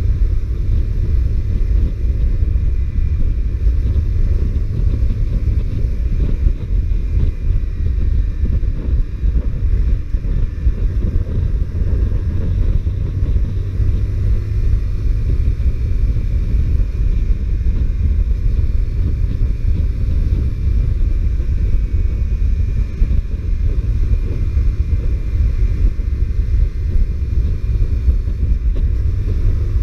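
Honda CBR125R's single-cylinder four-stroke engine running while riding, mostly buried under heavy wind rumble on the microphone.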